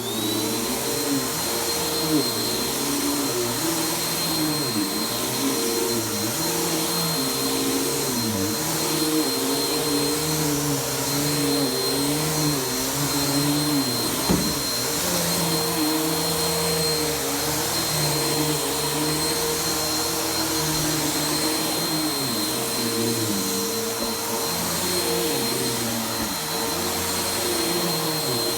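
Vacuum cleaner running over carpet with a steady high motor whine, its lower tones wavering up and down as it works; a single sharp click about halfway through.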